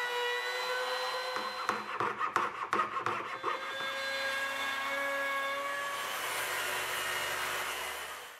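Woodworking power tools, routers and a circular saw, running with a steady motor whine and cutting wood. A run of sharp clatters comes about two seconds in, and the sound stops abruptly at the end.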